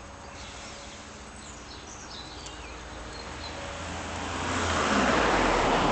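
Road traffic: a vehicle passing on the road, growing steadily louder through the second half with a low engine hum under the tyre noise.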